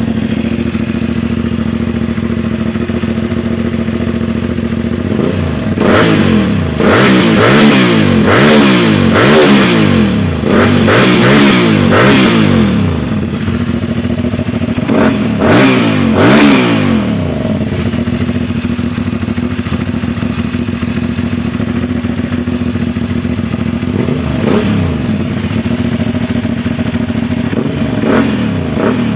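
Aprilia Dorsoduro 1200's V-twin engine through an SC-Project exhaust, warm, idling and then revved in a string of throttle blips from about six seconds in, each rising and falling, before settling back to a steady idle; a couple of short blips come near the end.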